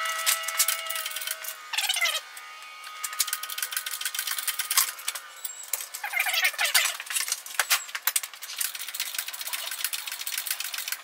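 Rapid clicking and rattling of metal parts and tools with a few short squeaky falling glides, as a worn mower engine is unhooked and lifted out on a hoist. The sound is thin and high, with no low end.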